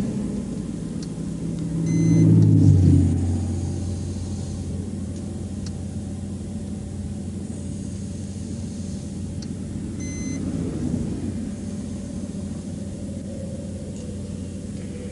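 A tractor-trailer passing on the interstate, loudest about two to three seconds in, over a steady low engine idle hum. A faint short beep sounds twice, about two and ten seconds in.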